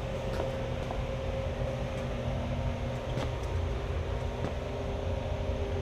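Several vintage electric fans running at once: a steady motor hum and whir with a few held tones, and a few faint ticks.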